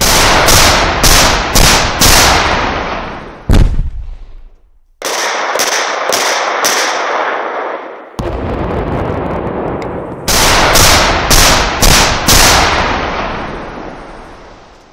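Explosive charges detonating in quick succession: three volleys of four or five sharp blasts about half a second apart, each trailing off into a long echoing rumble, with a single bang between the first two volleys.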